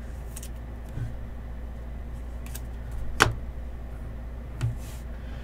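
A trading card is slid into a thin plastic sleeve and set down on a tabletop mat: faint rustles and light taps, with one sharp tap about three seconds in, over a steady low hum.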